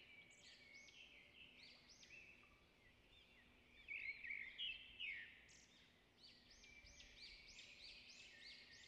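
Faint twittering of small birds: quick runs of short rising-and-falling chirps, loudest about four to five seconds in and again near the end, over a faint steady hum.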